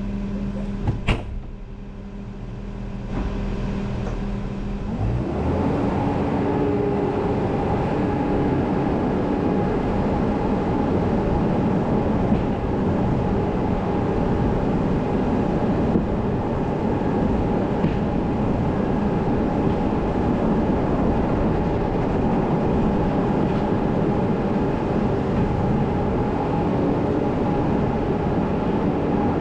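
Machinery running steadily and loudly, coming up to full noise about five seconds in, with a couple of sharp clicks near the start.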